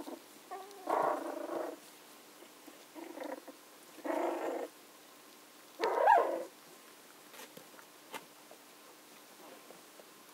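Young Tibetan terrier puppies making short whining cries, four of them, the loudest about six seconds in with a pitch that rises and then falls.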